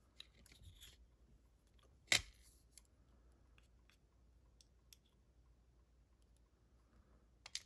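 Sparse small clicks and taps from handling the pins of a Corbin master ring lock cylinder being taken apart, with one sharp click about two seconds in and a quick pair near the end.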